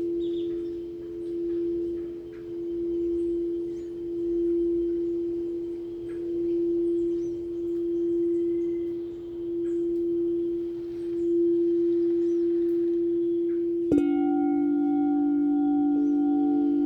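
Singing bowl ringing in one sustained tone that swells and fades about every second and a half. About 14 seconds in, another bowl is struck and rings on at a lower pitch with higher overtones, and one more tone joins shortly before the end.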